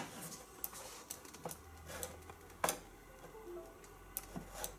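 A few sharp computer mouse clicks, the loudest about halfway through, against quiet room tone.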